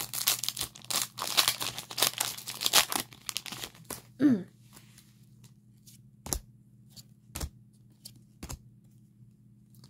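Foil Yu-Gi-Oh booster pack wrapper being torn open and crinkled for about four seconds. Then a short falling hum from a voice, and three soft, separate taps as the cards are handled.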